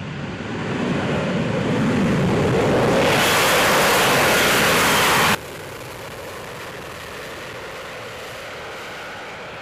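F-35B Lightning II jet engine at full power on a short takeoff, with its lift fan engaged: a loud, even rush of jet noise building over the first three seconds. About halfway through it cuts off suddenly to a quieter, steady jet noise as the aircraft climbs away.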